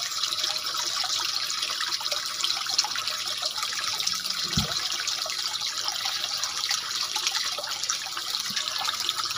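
Steady trickling of water in a fish tank pond, with one low thud about four and a half seconds in.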